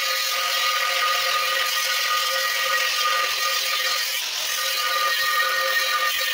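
Angle grinder's cutting disc cutting into the steel wall of an empty CNG cylinder: a steady, high-pitched grinding whine.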